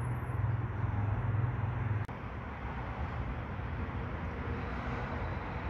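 Distant vehicle and urban background noise: a low engine drone for the first two seconds that stops abruptly, leaving a steady rumble.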